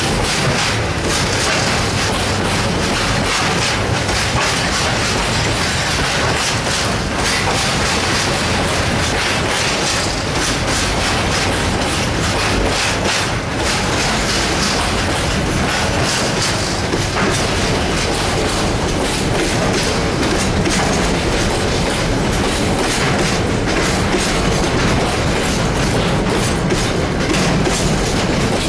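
A KiwiRail freight train's wagons rolling past close by: a loud, steady running noise with repeated clacks of the wheels over rail joints.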